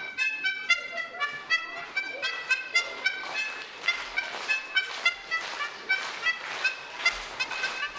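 A lively tune played on a musical instrument as a quick run of short, bright, sharply attacked notes, about three a second.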